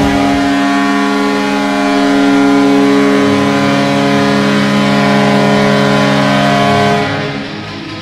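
Vancouver Canucks goal horn: a multi-tone horn blowing one sustained, off-key chord for about seven seconds, then dying away near the end.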